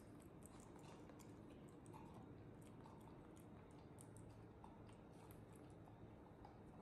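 Near silence with faint, scattered little clicks: a monkey biting and chewing at a small paper milk carton held to its mouth.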